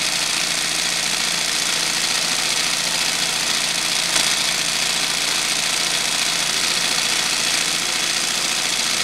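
Industrial yokofuri (swing-needle) embroidery machine running steadily at speed, its needle stitching without pause.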